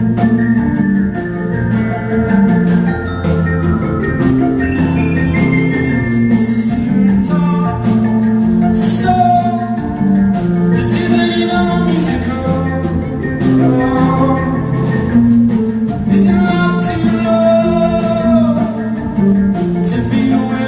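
Live concert music: a band playing, with a bass line that steps from note to note and sustained melody lines above it.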